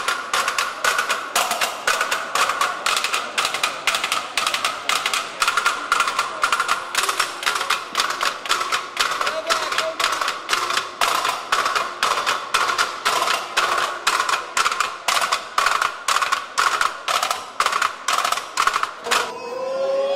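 Drumsticks beating metal stepladders in a junk-percussion routine: a fast, even rhythm of sharp metallic strikes with a ringing tone. The beating stops about a second before the end, and a rising siren-like wail begins.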